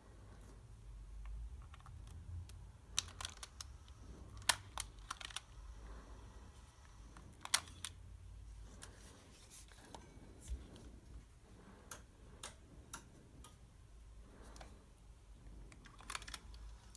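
Faint handling clicks and taps from an Aiwa HS-PX370 cassette Walkman: a 3.5 mm plug pushed into its jack and its control buttons pressed, giving a scatter of sharp separate clicks, thickest a few seconds in.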